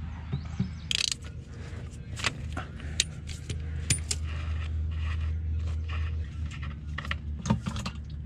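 Metal clinking and clanking as a hand tool works the transmission drain plug loose under a bulldozer's steel belly pan: a scatter of short sharp clicks and knocks over a steady low hum.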